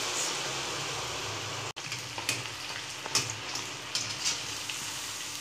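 Masala-battered potato fingers deep-frying in hot oil in a kadhai: a steady sizzle of bubbling oil. It breaks off for an instant a little under two seconds in, then a few light clicks of a metal skimmer against the pan sound over the sizzle.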